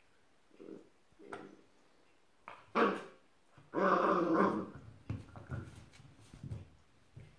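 Bouvier puppy growling in short bursts while playing with a chew toy, with a longer, louder growl about four seconds in.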